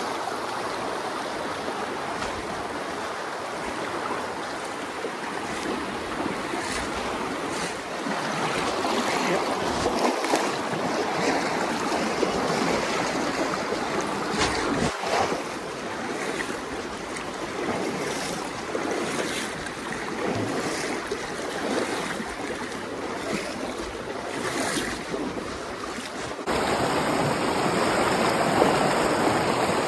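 A rain-swollen creek rushing over rocks, a steady wash of flowing water. About 26 seconds in it gets suddenly louder, the fuller rush of white-water rapids.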